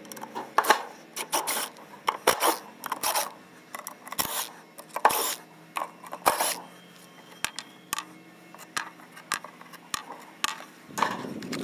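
Cordless driver backing screws out of a drywall panel, run in a series of short bursts with small clicks and scrapes of loosened screws between them.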